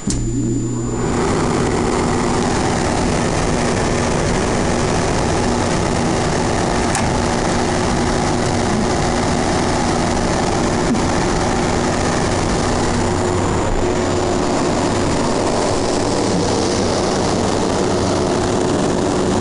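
Kelvinaire 240-volt air conditioner switched on and running: it starts suddenly with a low hum for about a second, then settles into a steady rush of fan air over an even motor hum.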